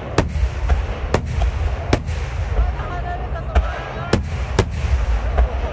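Aerial fireworks shells bursting overhead: a series of sharp bangs, about five of them, roughly one a second with a short lull in the middle, over a steady low rumble.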